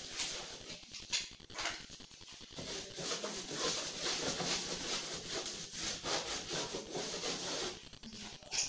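A marker-written board being wiped clean by hand: a run of rubbing, swishing strokes.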